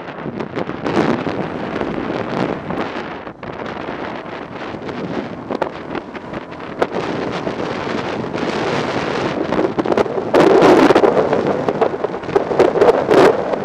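Wind buffeting the microphone of a camera on a moving ATV, with the ATV's engine running underneath. The wind noise gets louder about ten seconds in.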